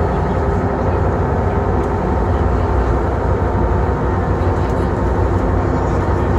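Passenger river boat's engines running steadily under way, a deep, even rumble with a faint steady hum on top.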